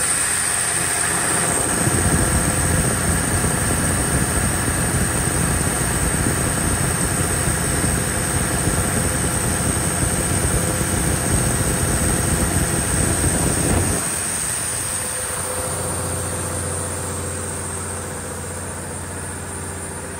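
Cummins KTA19-G4 turbocharged inline-six diesel engine of a 500 kW generator set running at steady speed, loud and rough when heard close up. About fourteen seconds in, it drops to a quieter, smoother steady hum as the engine is heard from further off.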